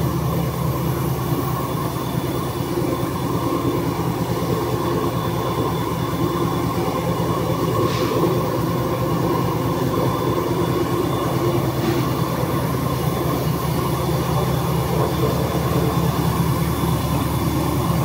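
Single-blade high-speed paper straw making machine running steadily: a continuous mechanical hum with a few steady higher tones over it, and two brief ticks about eight and twelve seconds in.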